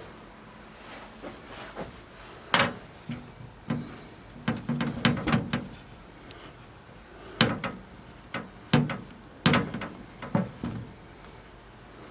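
A string of sharp knocks and clatters as the repaired model kit is handled and set back in place on a shelf, with a busy run of knocks about five seconds in.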